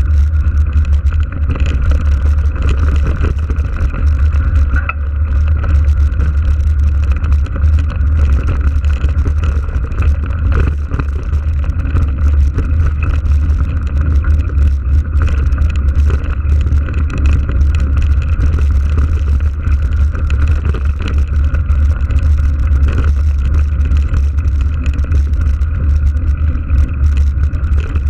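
Wind buffeting a moving action camera's microphone in a steady low rumble, over the rolling noise and small rattles of a mountain bike on a gravel dirt track.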